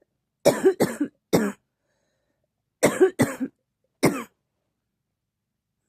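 A person coughing in two bouts of three sharp coughs each, the second bout coming about two seconds after the first.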